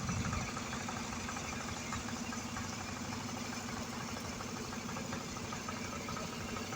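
Engine of road-construction machinery running steadily at a low, even speed.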